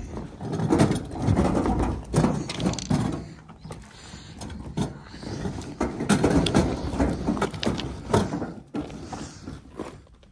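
Heavy chain on a metal farm gate rattling and the gate clanking as it is unchained and opened, in irregular bursts of clatter and knocks.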